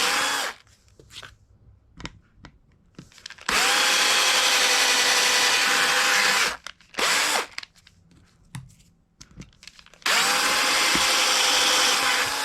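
Electric drill with a 1/8-inch bit drilling pilot holes in a plastic plate, the motor running with a steady whine in separate runs: the tail of one at the start, a run of about three seconds, a short burst, then a run of about two seconds near the end.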